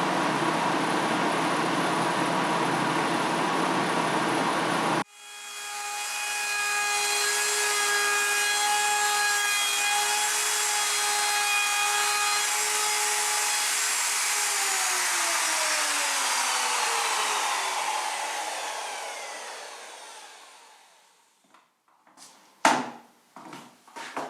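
A power woodworking tool cuts wood with loud, even noise that stops suddenly about five seconds in. A motor then runs up to a steady whine, and later falls in pitch and fades as it spins down after being switched off. A few sharp knocks come near the end.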